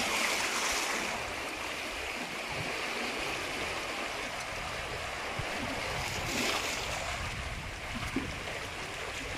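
Steady rushing of moving water, an even hiss with no distinct events.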